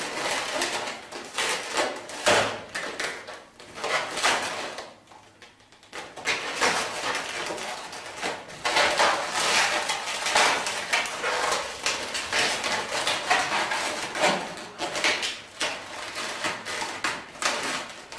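Latex 260 twisting balloons squeaking and rubbing against each other as hands squeeze and adjust the segments of a balloon basket, in a run of irregular strokes with a short lull near a third of the way through.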